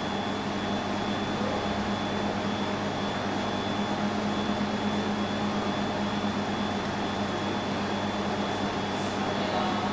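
Laser welding machine and its water chiller running while the system warms up after start-up: a steady hum and fan noise with a constant low tone and a faint high whine.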